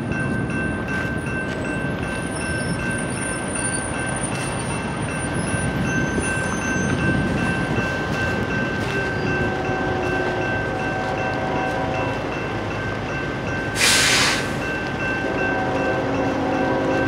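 Railroad crossing bells ringing steadily as the gates come down, over a low rumble from the approaching train. The multi-note horn of the approaching BNSF ES44C4 locomotive sounds about nine seconds in and again from about fifteen seconds, louder the second time. A short, sharp hiss near fourteen seconds is the loudest moment.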